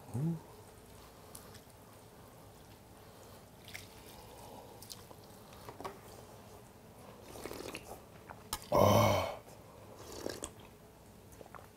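Eating sounds from cold buckwheat noodle soup (mul makguksu) in a steel bowl: quiet chewing and light clicks of steel chopsticks against the bowl. About nine seconds in comes one loud, short slurp of the broth.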